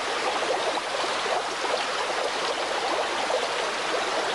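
Running water: a steady rushing noise with a fine, flickering babble.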